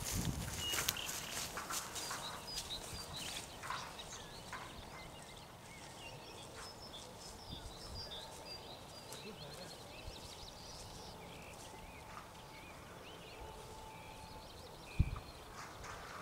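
Wild birds chirping, short high calls repeated throughout. A few rustles in the first few seconds, and a single dull thump near the end.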